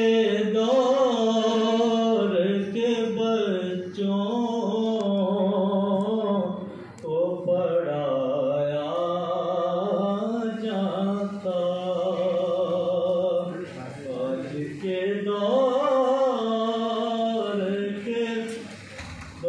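A man reciting a naat, a devotional poem in praise of the Prophet Muhammad, sung solo and unaccompanied into a microphone. He holds long melodic phrases with wavering ornaments, with short breaks between phrases.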